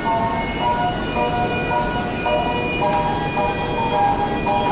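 Station platform melody chime playing a tune of short, clear electronic tones that step up and down, over a steady low rumble of trains.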